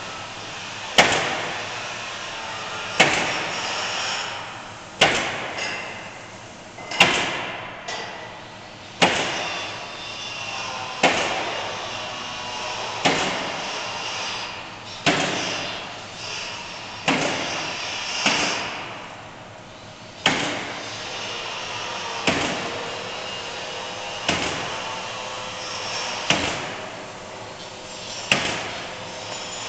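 Automated gantry nailing machine driving nails through plywood sheathing into a wood frame panel: a sharp bang about every two seconds, each trailing off, over a steady machine hum as the nailing head moves between shots.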